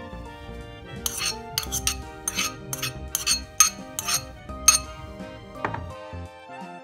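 A metal utensil clinking sharply against a ceramic bowl about a dozen times in quick succession, knocking and scraping shredded chicken out into the macaroni salad, over background music.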